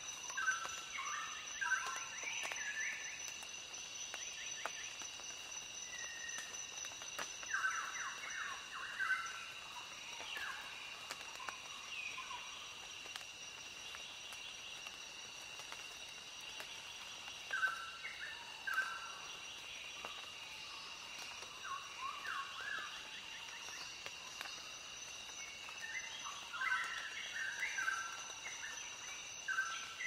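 Birds chirping in scattered bursts of short notes every few seconds, over a steady high-pitched hum.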